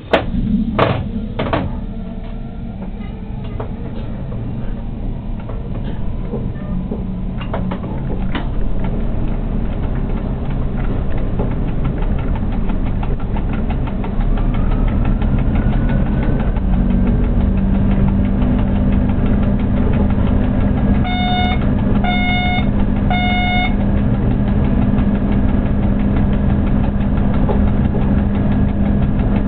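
Locomotive cab noise as the train starts moving: a few sharp clicks at first, then the running noise builds as the train gathers speed, with a rising whine from about halfway in. Three short beeps sound a little past two-thirds of the way in.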